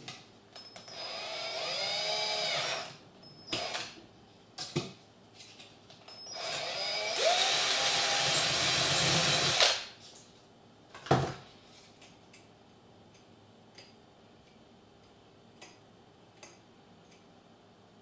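Cordless drill run twice, each for two to three seconds and speeding up at the start, drilling a small hole into the plastic of a failed graphics-card fan. A few scattered clicks and knocks of handling follow.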